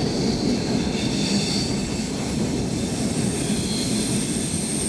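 Steady low rumble and hiss heard inside the passenger car of a Stockholm metro C6 train, with a faint high-pitched whine in the first couple of seconds and again near the end.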